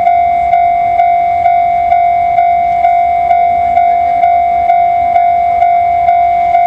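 Railway level-crossing warning bell ringing, a steady electronic ding repeated about twice a second, over the low rumble of an approaching electric freight locomotive.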